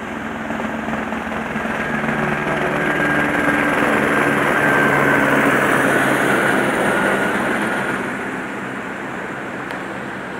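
Helicopter flying past: a steady engine and rotor noise with a turbine whine that grows louder to a peak about halfway through, then fades.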